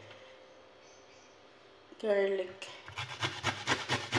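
Garlic being grated on a metal box grater: quick rasping strokes, about five a second, starting about three seconds in.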